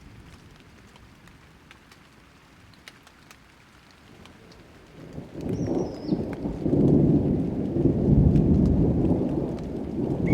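Light rain with scattered drop ticks, then a long low rumble of thunder that builds about halfway through and stays loud to the end. A bird chirps once as the thunder begins.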